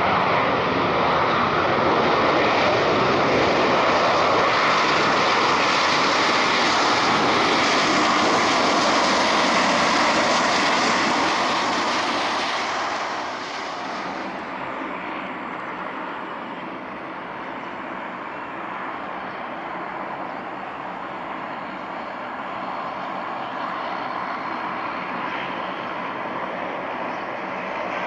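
Airliner engines running loud and close as the plane passes the runway's edge, the noise dropping away after about 13 seconds to a lower, steady rumble.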